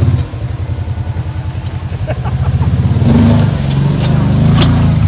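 Side-by-side UTV engine running at low speed with an even, pulsing beat, picking up and growing louder about three seconds in. A few light clicks come around two seconds in, and a sharp knock near the end.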